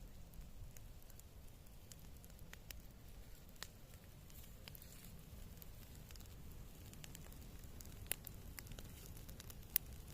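Wood campfire crackling, with scattered sharp pops and two louder snaps near the end.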